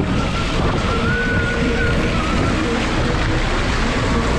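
Seawater churning and splashing against the side of a crab boat, over a steady rumble of wind and the boat's engine.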